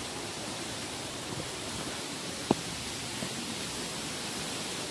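Steady outdoor rushing noise, with a single sharp click about halfway through.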